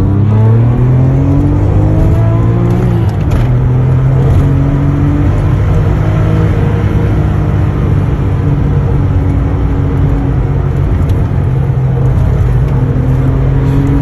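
Porsche 996 Turbo's twin-turbo flat-six heard from inside the cabin under hard acceleration: the revs climb for about three seconds, drop sharply at an upshift, then hold fairly steady with small rises and falls.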